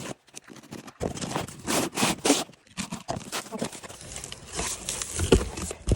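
Rustling and scattered knocks and scrapes of go-kart parts and their packaging being handled.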